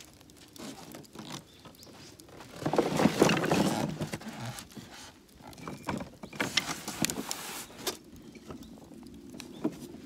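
Small wood fire crackling in a metal barbecue tray, with scattered sharp pops. About three seconds in there is a louder burst of rustling and scratching, and a little later a run of sharp clicks and knocks as firewood is handled.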